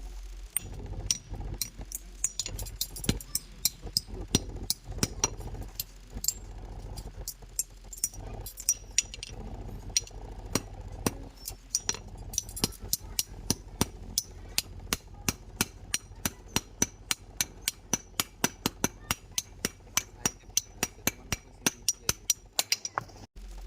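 Blacksmith's hammer striking metal on an anvil over and over, each blow with a bright ring. The blows are irregular at first, then settle into about three a second. A steady low hum runs underneath.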